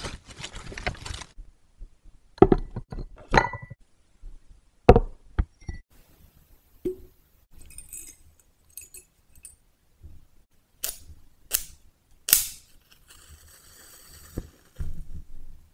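Small glass candle holder and other objects clinking and knocking on a table, then a wooden match struck three times against its box in quick succession; the last strike is the loudest and is followed by a faint hiss as the match burns.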